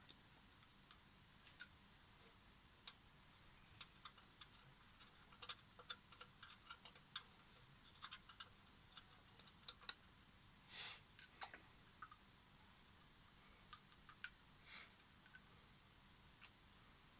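Quiet, irregular light clicks and taps of small parts and tools being handled, with a short rustle or scrape about eleven seconds in and another near fifteen seconds.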